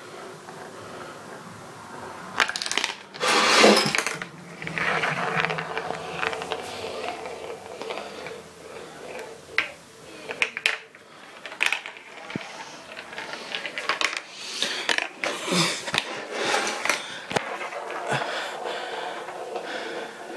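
Marble rolling and rattling through a plastic toy marble run: it circles a funnel bowl and runs down spiral trays, clicking and clattering against the plastic. There is a louder clatter a few seconds in.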